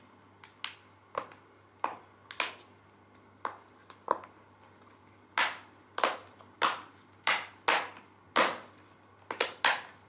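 Silicone bubbles of a solar-system pop-it fidget being pushed through one at a time: a string of about sixteen sharp pops at irregular spacing, louder in the second half.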